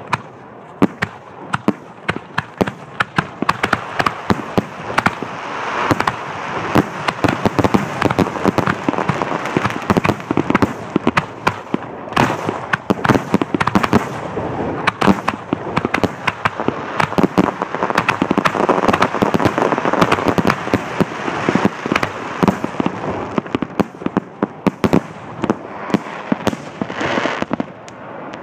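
Aerial fireworks display in a dense barrage: sharp bangs of bursting shells, several a second and overlapping, over a continuous rush of noise from the bursts and their echoes.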